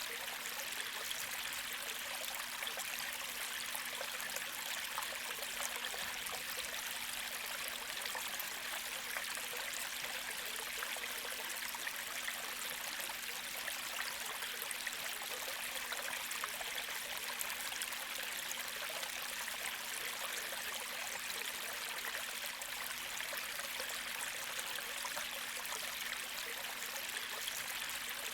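Gentle creek flowing: a steady, even rush and trickle of water that does not change.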